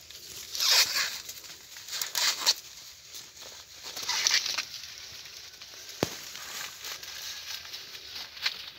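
Papery husk leaves being torn and peeled back by hand from a ripe ear of hybrid maize: a crackling rustle in several bursts, with one sharp snap about six seconds in.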